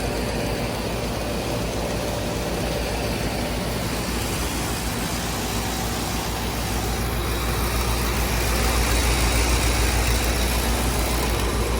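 Trane Odyssey central air conditioner running steadily: a deep, even hum with a fan-like rush over it, a little louder in the second half. Only one side of the unit is running, which the owner finds odd.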